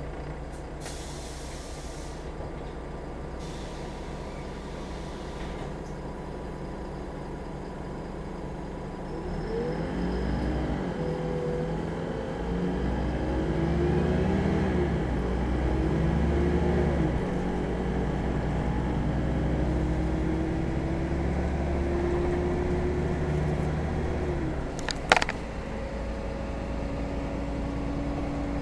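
City bus diesel engine heard from inside the cabin: idling at a stop with two short compressed-air hisses near the start, then pulling away about nine seconds in, its note rising and dropping through the gear changes before settling into a steady cruise. A single sharp air hiss comes near the end, after which the engine eases off.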